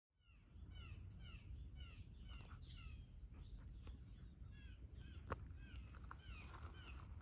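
Several songbirds chirping, with many short chirps a second overlapping one another, over a low steady rumble. A few sharp clicks come through, the loudest a little past halfway.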